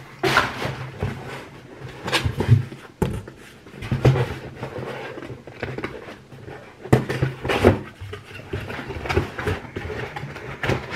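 Hands rummaging in a cardboard shipping box, with rustling of packing material and irregular knocks and clatters as hot sauce bottles are moved and lifted out.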